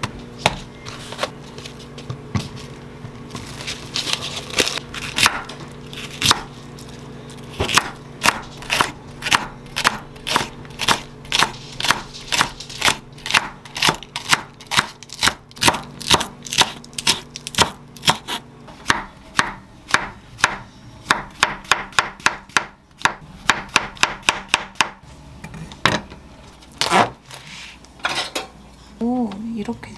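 Chef's knife chopping onion and slicing green onion (daepa) on a wooden cutting board: a steady run of crisp knife taps on the board, about three a second, thinning out near the end.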